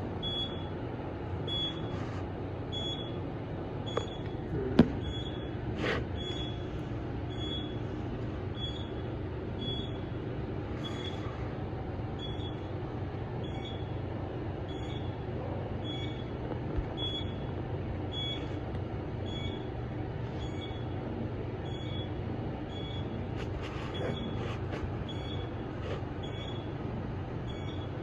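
Otis traction elevator car travelling up its shaft at speed: a steady low rumble and hum, with a short high beep about once a second as it passes each floor. One sharp knock about five seconds in.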